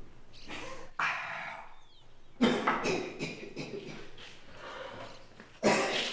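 A man coughing hard in three rough bouts after knocking back a drink, the coughing caused by the drink going down.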